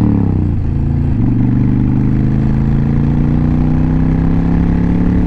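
Honda Fury's V-twin engine under hard acceleration: the revs fall away for a gear change about a second in, then the engine note climbs steadily as it pulls through the next gear.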